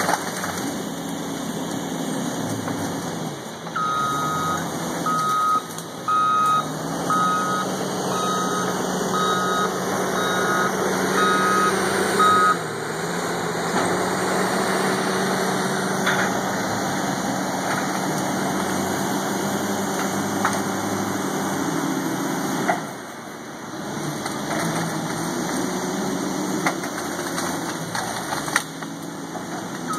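Front-end loader engine running under working load, its pitch rising and falling, with the machine's reversing alarm beeping about once a second for several seconds starting about four seconds in, as it backs up. The engine drops away briefly about three-quarters of the way through.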